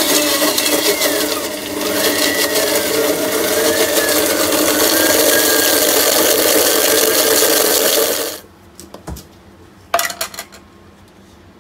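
Blendtec blender running at high speed, grinding pumpkin seeds and oil into a thick seed butter, its motor pitch wavering as the paste loads it. It stops abruptly about eight seconds in, followed by a few clicks from the jar and the control panel being handled.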